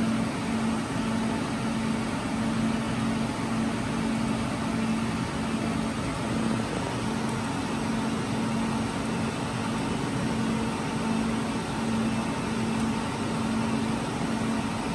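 Cooling fans of an HPE ProLiant Gen10 rack server running steadily during setup: a continuous airy whoosh with a steady low hum underneath.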